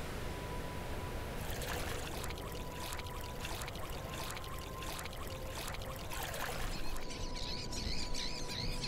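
Sound-effect water trickling and splashing in a run of quick drips and splashes, over a faint steady tone. Near the end, bird-like chirps come in.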